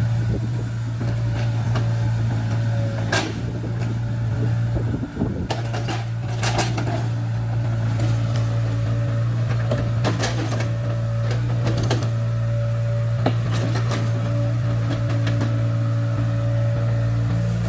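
Caterpillar 307C excavator's diesel engine running steadily with a steady hydraulic whine over it. Several sharp clanks and knocks are scattered through, about three seconds in, a cluster around six seconds, and again near ten, twelve and thirteen seconds.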